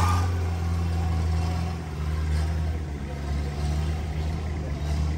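Toyota Land Cruiser BJ40's diesel engine running steadily at low revs as it crawls up a dirt track, slowly fading as it pulls away.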